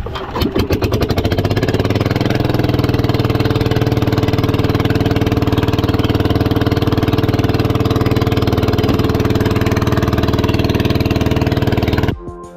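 Outrigger fishing boat's engine starting up, its beat quickening over the first couple of seconds, then running steadily. It cuts off suddenly near the end.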